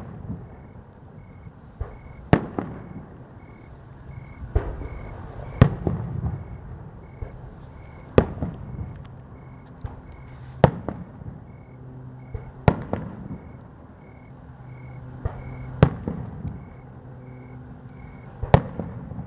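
Aerial firework shells bursting overhead: about eight sharp bangs two to three seconds apart, with smaller pops between them.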